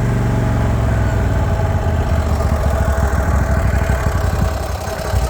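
Kohler 24-horsepower engine of a Hustler Raptor Limited zero-turn mower, blades disengaged, being throttled back: it drops from a steady high speed to a slower, pulsing idle about a second in.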